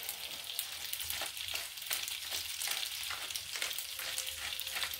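Cooked pasta sizzling as it is browned in a frying pan: a steady hiss with many small crackles and pops.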